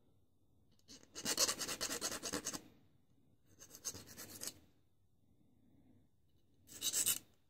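A large flat hand file rasping across the edge of a small etched metal kit part, filing off the cusps left by etching. There are three spells of strokes: the longest and loudest about a second in, a shorter, fainter one mid-way, and a brief one near the end.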